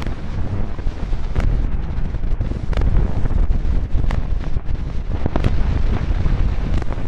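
Loud, dense rumbling noise, heaviest in the low end, with a sharp click recurring evenly about every one and a third seconds.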